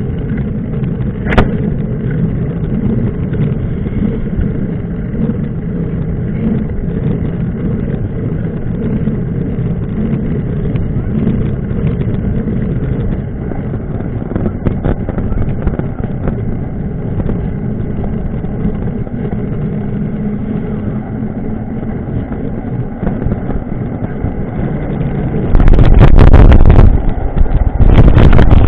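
Steady low rumble of a running vehicle. About 25 seconds in, a much louder rough noise takes over.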